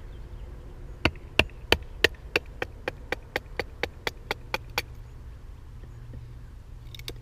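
Wooden baton knocking on the spine of a BMF2 bushcraft knife, driving the blade down through a split of wood: about fifteen sharp knocks in under four seconds, quickening slightly and getting softer as the blade sinks in.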